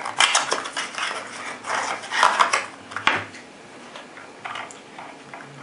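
Cardboard box of 12-gauge shotshells being handled and the shells slid out, with rustling and the shells knocking and clinking together; a sharp click about three seconds in, then only light handling.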